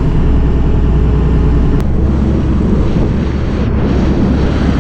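Passenger ferry underway in rough water: a steady low engine drone mixed with the rush of the choppy sea along the hull.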